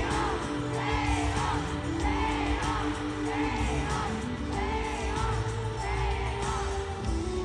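Amplified pop music with singing at a live arena concert, heard from within the audience, with crowd whoops and yells mixed in. A rising-and-falling melodic phrase repeats about once a second over held notes.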